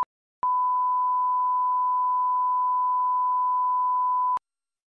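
Broadcast line-up test tone played with SMPTE colour bars, the level-calibration signal at the head of a TV programme tape: a brief blip, then one steady pure beep for about four seconds that cuts off suddenly.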